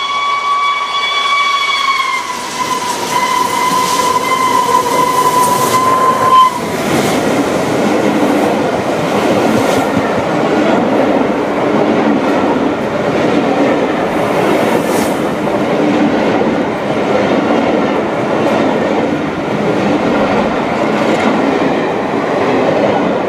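Steam locomotive 60136 Tornado, a Peppercorn A1 Pacific, sounds one long whistle at speed for about six seconds, its pitch dipping slightly about two seconds in, before it cuts off. Then its train of coaches rattles past with a steady rumbling clatter and clicking wheels.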